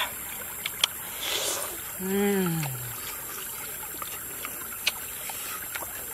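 Metal spoon clicking and scraping in a broken ostrich eggshell during eating, over the steady rush of shallow stream water. About two seconds in, a short low hum from a person that falls in pitch.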